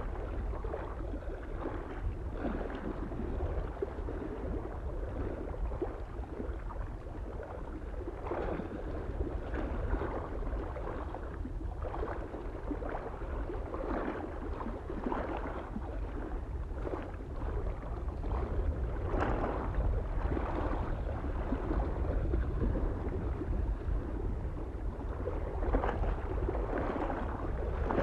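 Small waves lapping on a mountain lake shore in irregular splashes every second or two, over a steady low rumble of wind on the microphone.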